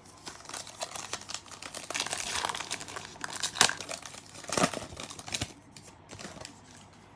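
Plastic-foil trading card pack wrapper crinkling as it is torn open, with a couple of sharper rips near the middle.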